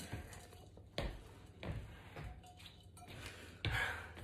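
Quiet room with a few scattered knocks and thuds from someone moving about and handling things: a sharp knock about a second in, and a heavier thud near the end.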